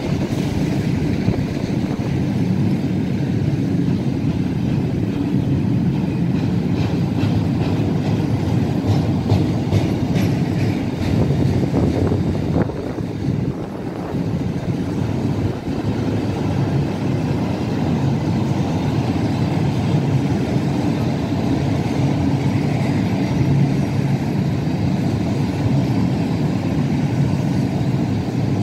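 Empty double-deck car-transporter freight wagons rolling past, a steady rumble of steel wheels on the rails with a few knocks and a brief dip about halfway through.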